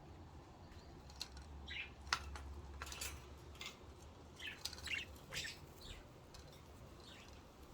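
Pet budgerigars chirping in short, scattered high calls, with a faint steady hum underneath.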